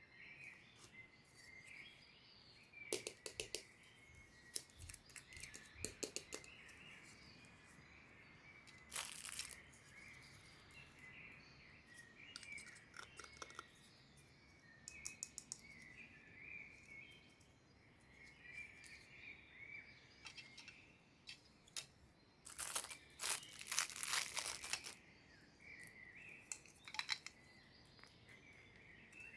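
Small plastic toy pieces and packaging handled and unwrapped: scattered clicks and crinkling, with a dense run of clicks near the end. Birds chirp steadily in the background.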